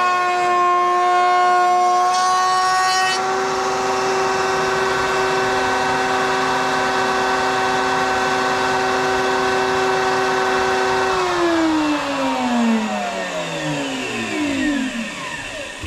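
A power tool's motor running with a steady high whine, its tone changing slightly about three seconds in. About eleven seconds in it is switched off and winds down, its pitch falling steadily to a stop.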